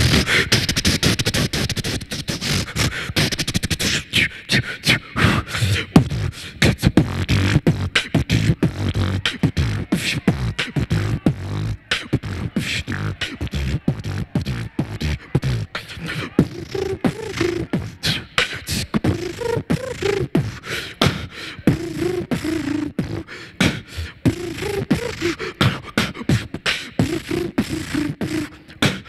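Solo beatboxing into a handheld microphone: fast mouth-made drum beats of low thumps and sharp clicks. It opens with a few seconds of hissing, static-like noise. From about halfway, a hummed, bending tone is woven in among the beats.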